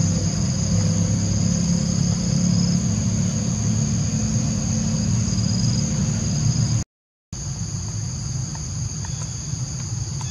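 Steady, high-pitched drone of insects over a low rumble. The sound cuts out completely for a moment about seven seconds in, then resumes.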